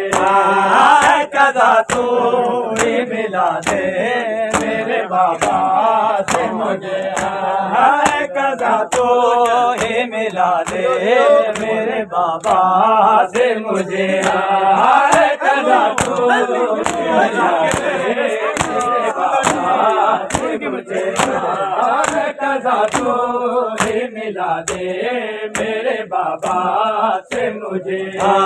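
A group of men chanting a noha in unison, with the steady slaps of matam, hands beaten on chests, keeping time about once or twice a second.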